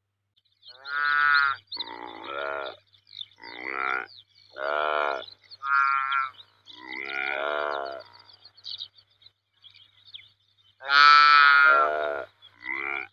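Saiga antelope calling: a run of about eight short calls, each under a second, with a pause of about three seconds partway through and the loudest, longest call near the end. Faint high chirping runs under the first half.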